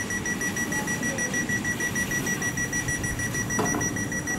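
Door warning alarm of a Class 350 Desiro electric train standing at the platform: rapid, even high-pitched beeping.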